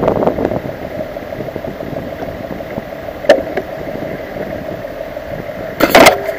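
A steady hum with a sharp click about three seconds in, as a car door opens beneath a camera on the car's roof. Near the end comes loud knocking and rubbing as a hand grabs the camera.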